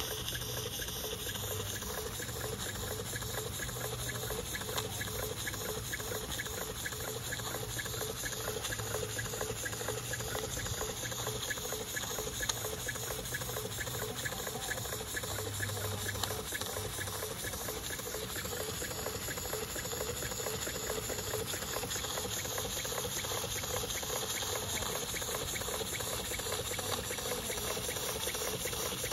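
Model tandem steam engine running on live steam: a fast, even run of exhaust beats over a steady hiss of steam.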